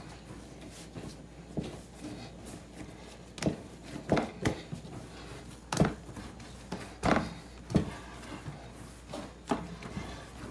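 Bread dough kneaded by hand on a wooden countertop: irregular dull thumps and knocks as it is pressed, folded and pushed against the wood, with a run of louder knocks in the middle.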